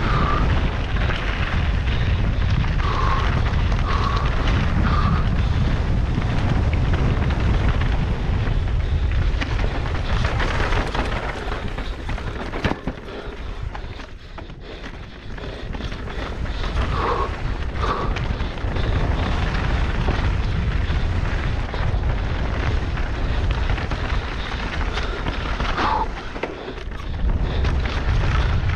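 Wind rushing over the camera microphone on a mountain-bike downhill run, with the tyres and bike rattling over dirt and rock. It eases off briefly about halfway through. A few short squeaks come near the start, twice about two-thirds of the way in, and once near the end.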